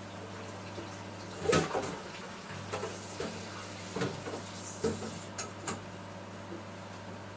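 Scattered knocks and clatters of kitchenware being handled, the loudest about one and a half seconds in, over a steady low hum.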